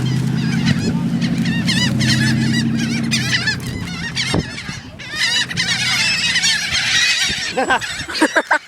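A flock of birds squawking and calling over one another, dense and continuous. A few louder, lower calls come close together near the end. A steady low hum sits underneath for the first few seconds.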